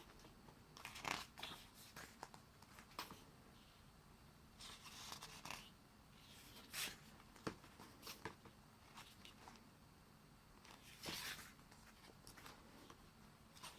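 Photobook pages being turned by hand: faint paper rustles and flips, one every second or few.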